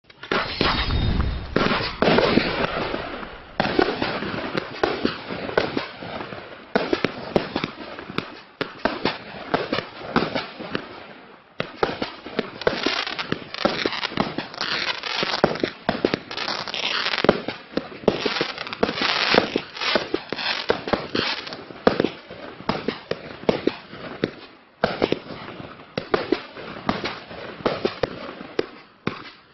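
A 192-shot, 25 mm calibre Klasek firework compound cake firing: a rapid, continuous run of shots and aerial bursts, with a few short breaks between firing sequences.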